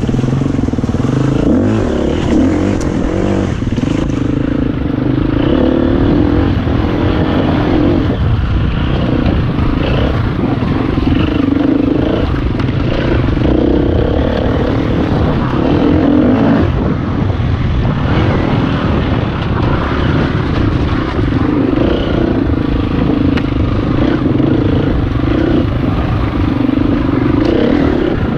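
Enduro dirt bike engine heard from on board while riding a rough trail, its revs rising and falling continuously with the throttle.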